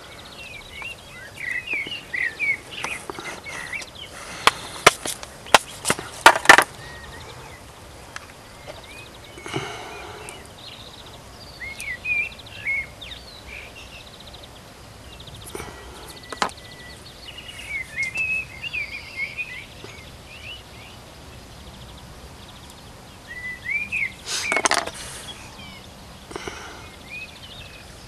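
Small birds chirping in short bursts throughout, over a light outdoor background. Several sharp clicks and knocks from handling plastic tackle boxes stand out, loudest about five to six seconds in and again near the end.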